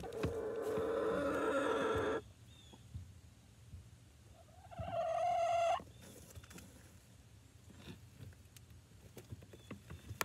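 Hens calling inside a wooden nesting box. One long drawn-out call ends about two seconds in, and a second, shorter and higher call comes about five seconds in. Faint scratching and shuffling in the wood-shaving bedding follows.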